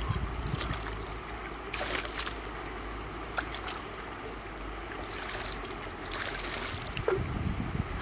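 Water sloshing and splashing as an earthenware pan is dipped and rinsed in a river, in two brief bursts about two seconds in and again about six seconds in, over a low steady rumble of wind on the microphone.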